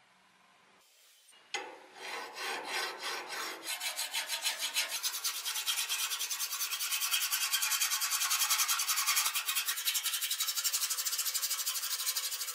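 Long flat hand file rasping along the edge of a forged iron sword blade in quick, even strokes, starting about a second and a half in after a moment of near silence.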